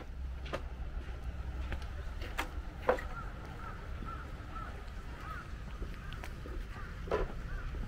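Footsteps on a path, with birds calling in a string of short, arched chirping notes from about three seconds in until about seven seconds in.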